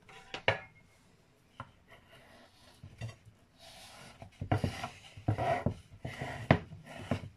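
A metal knife scraping and rubbing along a wooden cake board as it is worked under a frosted cake to loosen it. A few faint clicks at first, then several rough scraping strokes with sharp knocks in the second half.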